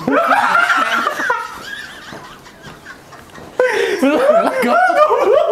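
Two men laughing out loud: a burst of laughter in the first second or so, a quieter lull, then laughing hard again from about three and a half seconds in.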